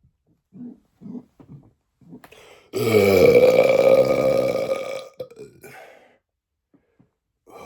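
A man's long, loud belch lasting about two and a half seconds, starting low and sweeping up in pitch before holding steady, coming about three seconds in after a few faint short sounds.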